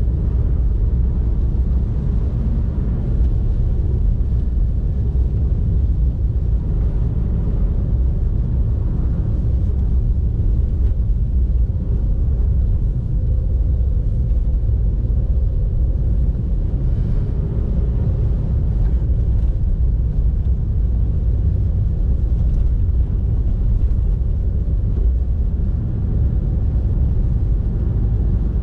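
Car driving along, giving a steady low rumble of road and engine noise that holds even throughout.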